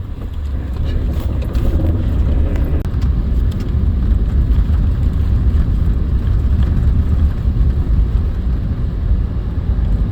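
Toyota Tundra pickup driving on a snow-covered, unplowed road: a steady low rumble of engine and road that grows louder about a second in, then holds.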